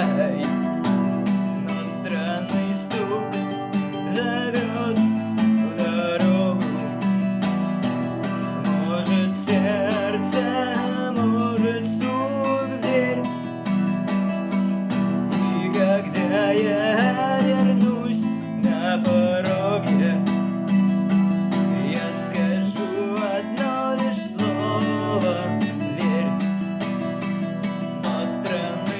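Acoustic guitar strumming steady chords, with a wavering melody line played or hummed over them and no words sung.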